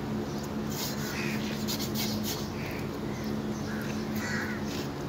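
Crows cawing, several short calls about a second and a half apart, over a steady low mechanical hum.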